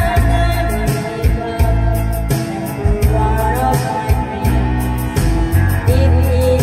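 A woman sings into a handheld microphone over a backing track with bass and a steady drum beat.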